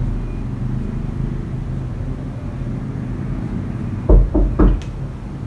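Steady low mechanical rumble, like a running engine, with three heavy knocks in quick succession about four seconds in.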